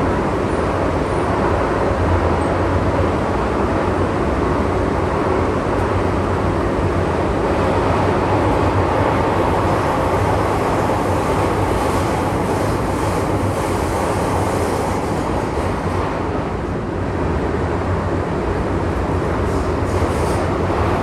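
MTR M-Train metro car heard from inside the carriage while running: a steady rumble of wheels on rail with a low motor hum, dipping slightly about sixteen seconds in.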